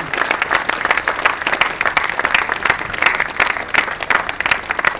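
Audience applauding, a dense steady clapping of many hands that carries on without a break.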